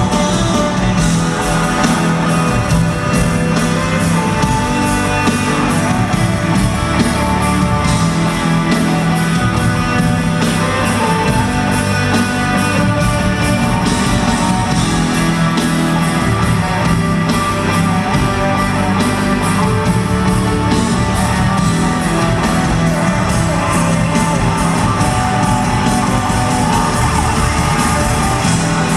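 A rock band playing loud, dense music with guitars over a steady drum beat, and a voice singing over it.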